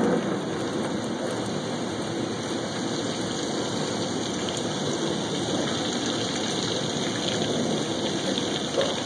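Heavy wind-driven downpour, a steady rush of rain falling on a clay tile roof and the street. A strong gust makes it loudest at the very start, then it settles to an even pour.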